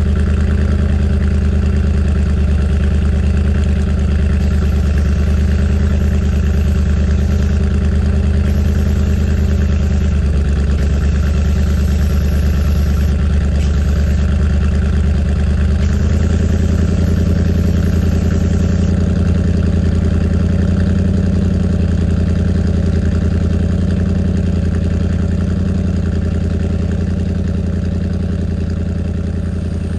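A car engine idling steadily, its tone changing slightly about ten and sixteen seconds in, then fading out near the end.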